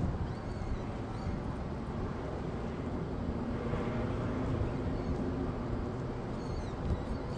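Steady low rumbling noise with hiss, over which falcon chicks give a few faint high peeps near the start and again near the end.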